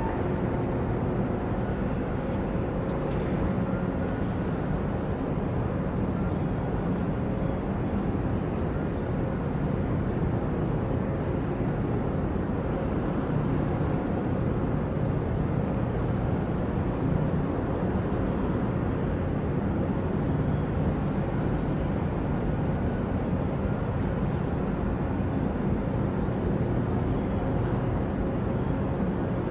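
Steady low engine drone from ships on the harbour water, with a few faint tones above it and no breaks or changes.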